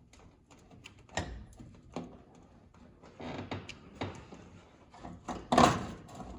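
Scattered clicks, knocks and brief scraping from wiring being worked through a truck's firewall, with a louder thump about five and a half seconds in.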